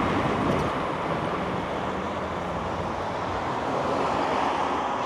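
Steady rushing noise of riding an electric bike: wind over the microphone mixed with tyre and road noise.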